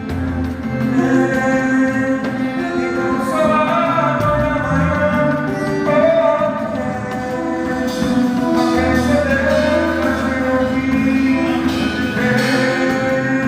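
Worship music: instruments with singing, steady and loud.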